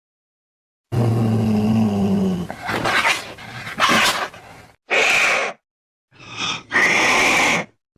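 Angry domestic cat growling low for a few seconds, then three short, harsh cries in quick succession, with abrupt cuts between them.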